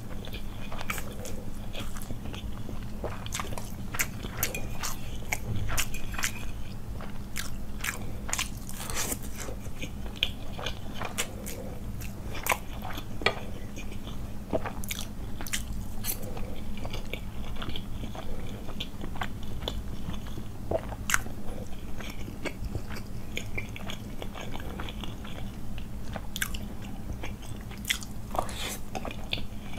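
Close-miked eating sounds of a person chewing and slurping Maggi masala noodles, with a bite of boiled egg partway through. The mouth makes many short, sharp clicks over a steady low hum.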